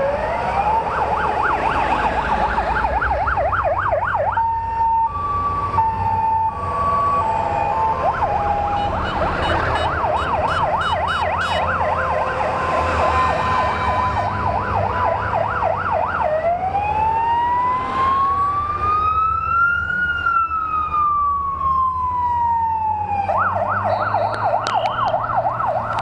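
Emergency-vehicle siren escorting a military convoy. It switches between a fast warble, a few seconds of stepped steady tones, and a slow rising-and-falling wail. Underneath is the low rumble of eight-wheeled Stryker armoured vehicles driving past.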